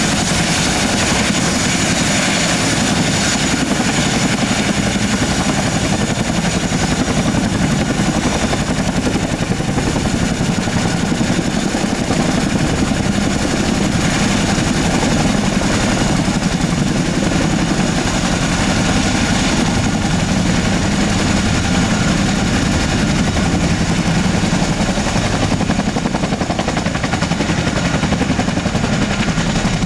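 Boeing CH-47F Chinook taxiing with its twin Lycoming T55 turboshaft engines and tandem rotors running. A fast, steady rotor chop sits over an even turbine whine.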